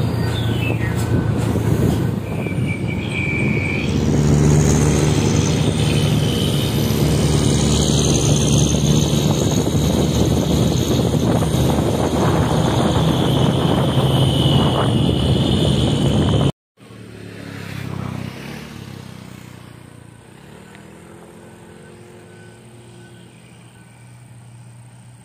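Heavy trucks' diesel engines running with road noise, loud and steady, growing louder about four seconds in. After a sudden cut, distant truck engines are heard much more quietly, with one brief swell in loudness.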